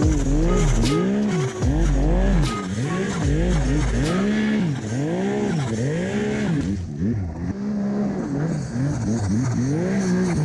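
Snowmobile engine revved up and down over and over, its pitch rising and falling more than once a second as the throttle is worked.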